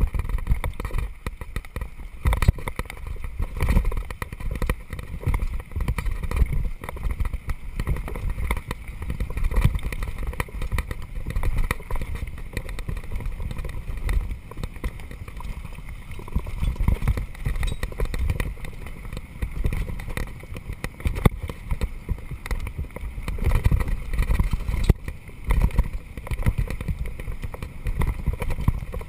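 Downhill mountain bike running fast over a loose gravel track: tyres crunching over stones, with a constant clatter of knocks and rattles from the bike and a low rumble of wind on the microphone.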